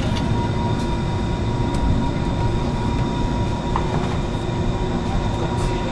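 Electric rack railway train of the Bavarian Zugspitze Railway climbing at a steady speed: a steady rumble with a constant high whine and a few light clicks.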